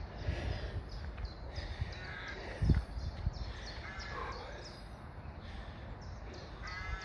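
Crows cawing a few times, with a steady low rumble underneath and a single loud thump about two and a half seconds in.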